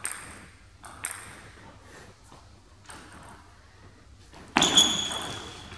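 Table tennis rally: the ball clicking sharply off the bats and table a few times, then a much louder sudden hit about four and a half seconds in that rings and fades over about a second.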